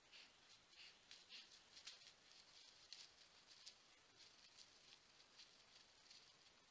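Faint, irregular rustles of deer stepping and grazing in dry grass, a few each second, thinning out after about four seconds.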